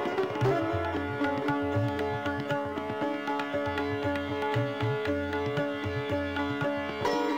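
Instrumental background music in an Indian style: plucked strings over a steady drone, with a repeated low hand-drum beat.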